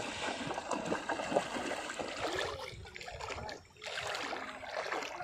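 Shallow seawater splashing and swishing as someone wades through it, dragging large fish through the water, with a short lull about two-thirds of the way through.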